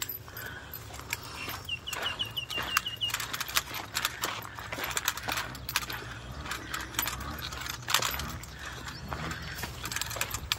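Irregular clicking and rattling over a low steady rumble, with a bird calling a quick run of about eight short notes a couple of seconds in.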